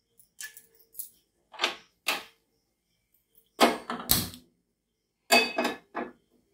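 Cookware knocking and clattering as it is handled, with a saucepan being set on the stove: a string of short knocks, the loudest a pair about three and a half to four seconds in.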